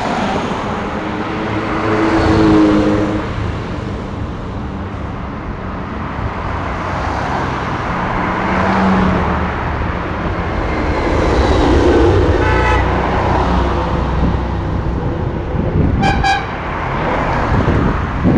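Cars in a Ferrari parade driving past on a road, the engine sound swelling and fading as each car goes by. A car horn toots twice, about three and a half seconds apart, in the second half.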